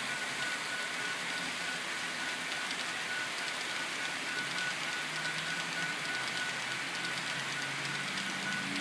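Model coal train's hopper cars rolling past on the track: a steady mechanical rumble and clatter of small wheels on rails, with faint fine clicking.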